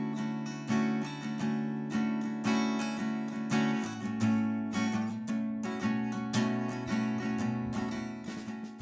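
Background music: strummed acoustic guitar with a steady rhythm, ending abruptly.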